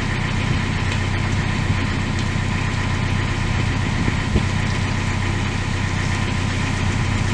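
A boat's engine running steadily, a low even drone, with one brief knock about four seconds in.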